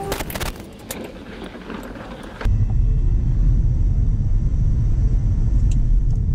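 Car driving noise on a test track, with a few sharp clicks at the start. About two and a half seconds in it switches suddenly to a loud, steady low rumble.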